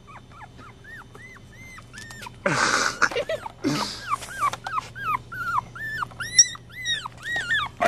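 Chihuahua puppy whining and whimpering: a long run of short, high, rising-and-falling whines, about two a second. Two louder, rough noisy bursts break in about two and a half and three and a half seconds in.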